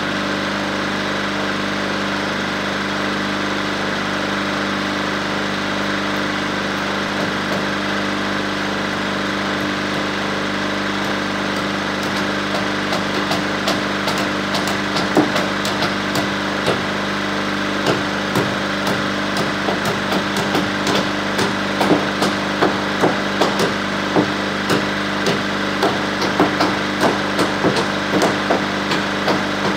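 Crawler dozer's engine idling steadily, and from about halfway through, a hammer striking wood in quick, irregular blows as rafters are nailed up.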